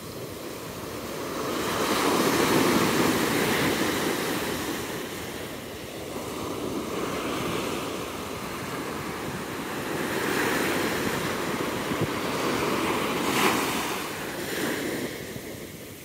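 Ocean surf on a sandy beach: small waves break and their foam washes up the sand, the rush of water swelling twice, with a brief sharper crash near the end of the second swell.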